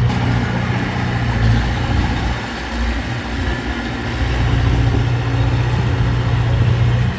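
Heavy earthmoving machine's diesel engine running steadily; it eases off about two and a half seconds in, then builds back up a couple of seconds later.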